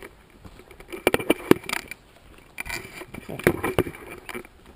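Footsteps on rough, overgrown ground with the rattle and rustle of the player's kit, in two quick bursts of steps.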